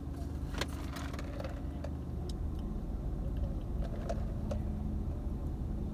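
Steady low hum inside a parked car, with scattered small clicks and taps.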